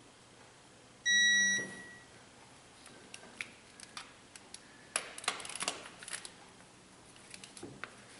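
Digital angle torque wrench beeping once, a steady electronic tone lasting about half a second, a second in: the signal that the set 90-degree angle on a cylinder head bolt has been reached. It is followed by irregular light metallic clicks from the ratchet and socket, densest in the middle.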